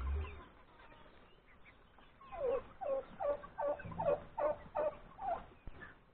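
Chicken calling: a run of about nine short clucks, each dropping in pitch, roughly three a second, starting about two seconds in.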